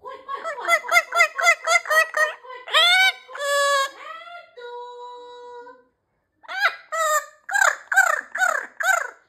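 Amazon parrot calling: a fast run of short, arched chirping notes at about four a second, then a rising call and a steady held whistle, and after a brief pause another fast run of loud chirping notes.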